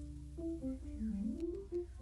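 Background music: a light melody of short plucked notes, guitar-like, over a steady low bass.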